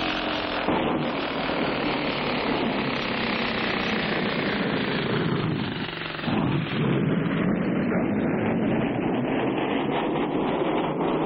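Cartoon sound effect of a loaded ore cart rolling down a mine track: a steady, noisy rumble that dips briefly about six seconds in, then comes back.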